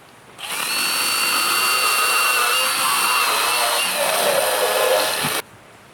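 Chainsaw running for about five seconds, cutting firewood in half for a small fire pit. It has a steady high whine that starts about half a second in and cuts off suddenly near the end.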